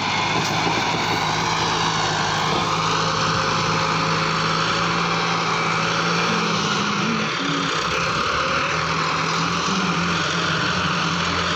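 Massey Ferguson tractor's diesel engine running hard under heavy load, pulling an overloaded trolley of soil. The engine note is steady, rising briefly about two-thirds of the way through.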